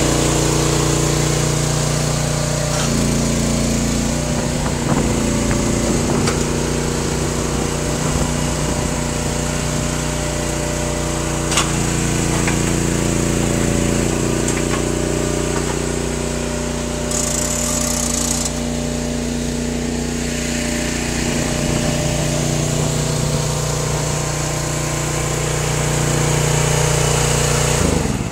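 Hydraulic firewood processor running steadily, its power unit and hydraulic pump holding a constant drone whose tone shifts a few times as the control levers are worked, with a single sharp click about halfway. The machine stops abruptly at the very end.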